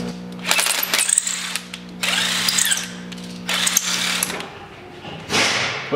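Cordless drill run in several short bursts against the sheet metal of a car's rear wheel well, its pitch rising and falling as the bit bites.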